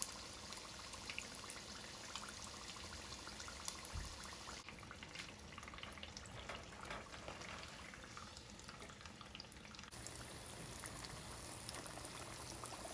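Sambusas deep-frying in hot oil in a pan: a steady bubbling sizzle with fine crackles.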